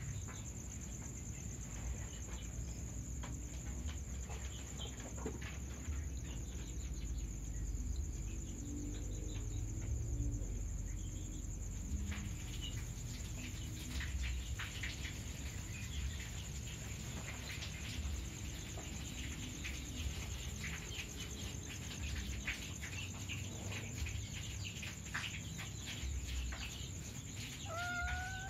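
Steady high insect chirping with scattered soft clicks and rustles, and a kitten's short rising meow near the end.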